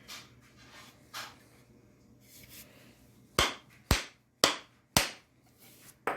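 Four hard knocks about half a second apart, then a lighter fifth near the end: hammer blows driving the wrought-iron axe head onto its wooden handle to test the fit.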